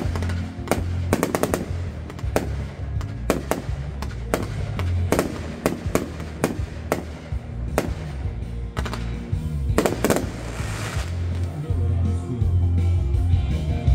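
Aerial fireworks shells bursting in an irregular string of sharp bangs, about one or two a second, with a crackling shower about ten seconds in. The bangs thin out over the last couple of seconds.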